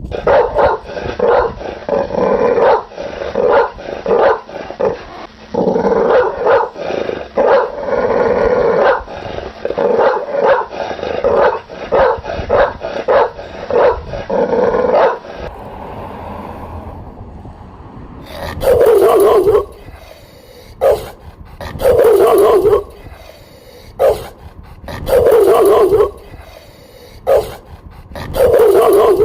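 Pit bull barking: a fast run of barks for about the first fifteen seconds, then after a short lull, slower, fuller barks about every second and a half.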